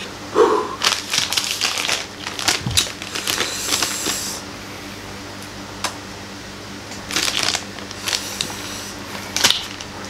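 Plastic instant-noodle packet crinkling as it is handled, in several short bursts, over a faint steady hum.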